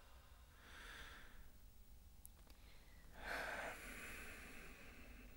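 A person's soft breathy exhalations, like sighs: a faint one about a second in and a louder one a little past three seconds, over faint low room tone.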